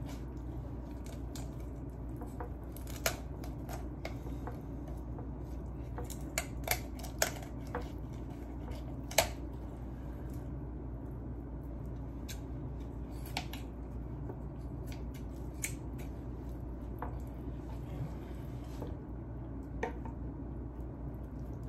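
Kitchen scissors cutting through a chicken's backbone: irregular sharp snips and crunches as the blades close on bone, the loudest about nine seconds in, over a steady low hum.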